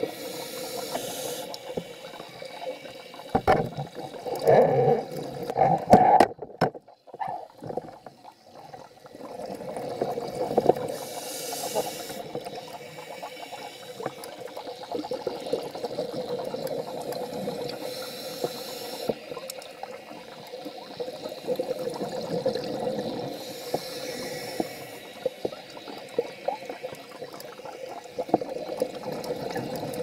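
Scuba diver breathing through a regulator, recorded underwater: a short hiss of inhaled air every several seconds, with bursts of bubbling from exhaled air, loudest about four to six seconds in. A steady hum runs underneath.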